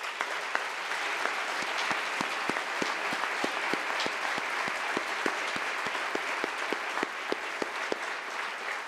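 Audience applauding, starting all at once and thinning out near the end. One set of louder claps stands out at a steady beat of about three a second.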